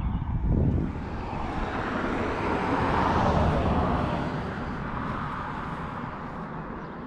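A passing vehicle: a rushing noise that swells to its loudest about three seconds in and then fades away, with low thumps and rumble on the microphone near the start.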